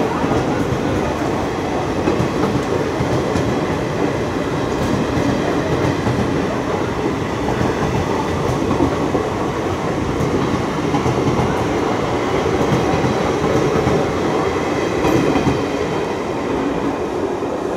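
Indian Railways express train's blue-and-white coaches rolling past at low speed, with a steady rumble and clatter of wheels on the rails that eases slightly as the last coach goes by near the end.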